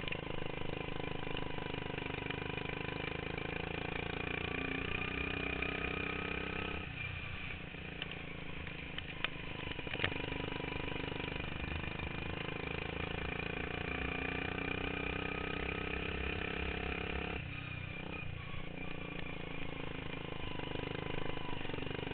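Racing lawn mower engine running hard, its pitch rising and falling with the throttle and dropping away briefly twice.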